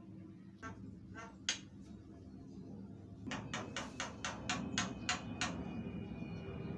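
Javan mynas calling: a few separate sharp notes, then about halfway through a fast run of about ten short, loud calls, four or five a second, over a low steady background rumble.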